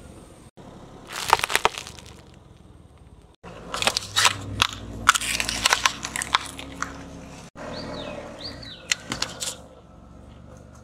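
Crackling and crunching as a slowly rolling car tyre crushes plastic-wrapped items on asphalt, in several short bursts cut together, the busiest run a few seconds in.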